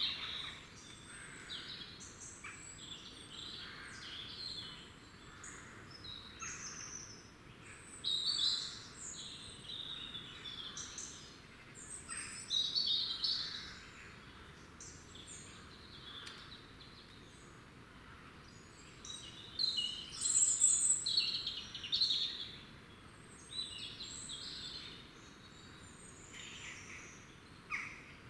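Small woodland songbirds singing and calling: a run of short, high twittering phrases with brief pauses between them, loudest in clusters about 8, 13 and 21 seconds in.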